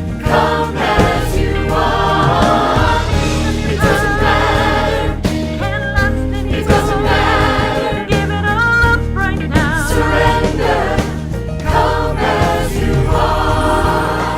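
A gospel-style worship song: a choir singing over instrumental backing with a steady bass line, with some held, wavering vocal notes.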